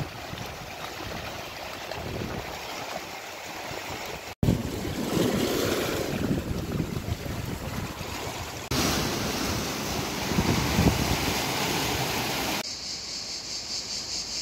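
Small waves washing over shoreline rocks, with wind buffeting the microphone. The sound changes abruptly at edit cuts, and near the end a high, steady insect buzz takes over.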